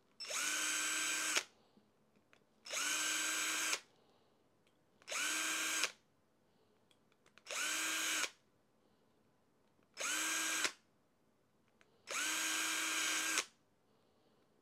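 Cordless drill run in six short bursts, each spinning up quickly to a steady whine, as it enlarges holes in a small 3D-printed ASA plastic part.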